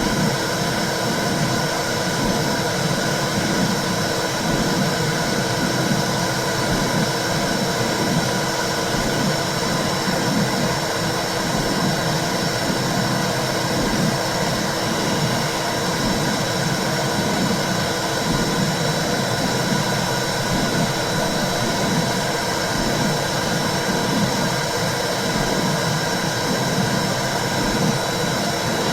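Womb sound: a steady, muffled whooshing noise like blood flow heard inside the uterus, with a low, uneven pulsing underneath and a faint constant high tone.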